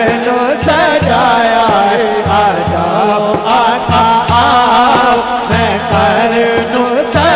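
Devotional Punjabi kalam: a male voice sings a drawn-out, wavering melody without clear words over a low drum beat that falls about twice a second.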